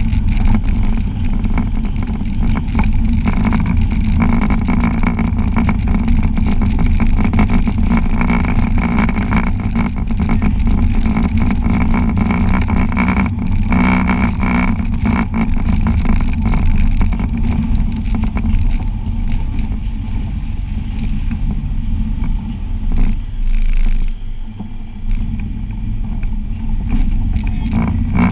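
Side-by-side UTV's engine running steadily as the machine drives a rough dirt trail, with many short clicks and rattles throughout. The engine eases off briefly about 24 seconds in, then picks up again.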